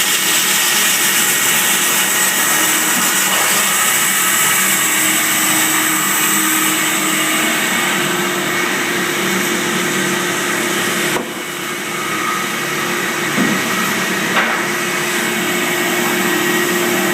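Baker band sawmill running and cutting through hand-hewn white oak timber: a loud, steady rushing whine with several steady tones. About eleven seconds in, the sound drops suddenly and then climbs back over the next few seconds, with two short knocks.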